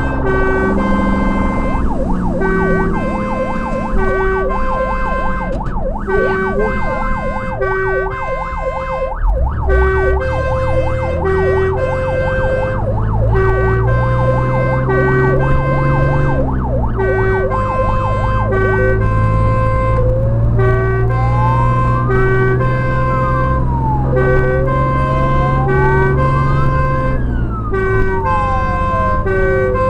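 Fire engine responding under emergency warning: a two-tone horn alternates high and low about once a second throughout. Over it an electronic siren yelps rapidly for roughly the first twelve seconds, then wails in slow rising-and-falling sweeps from about two-thirds of the way in. The truck's engine rumbles underneath, its pitch climbing and dropping a few times as it accelerates through the gears.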